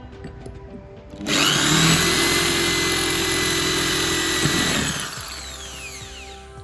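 Eposch 10mm electric drill switched on suddenly and run at a steady speed for about three and a half seconds, then released and spinning down with a falling whine. Background music plays underneath.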